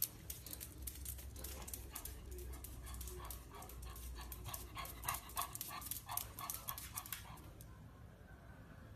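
Pug panting in quick, noisy breaths that stop about seven and a half seconds in.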